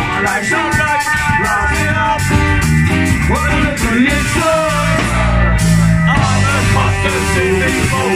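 Ska-punk band playing live: loud amplified music with a singing voice, guitar, trombone and driving drums with cymbal strikes.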